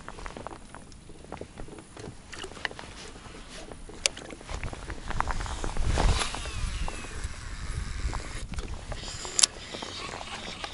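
A cast with a casting rod and reel: a whoosh as the rod swings, then the reel's spool whirring with a falling pitch as the line pays out, and a sharp click about nine seconds in. Wind on the microphone and water lapping against the boat throughout.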